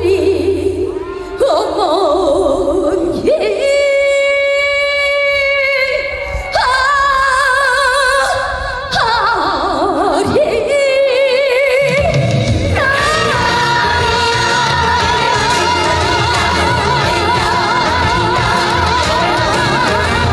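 A woman singing long held notes with wide vibrato over sparse accompaniment; about twelve seconds in, a full band with drums and bass comes in under her voice.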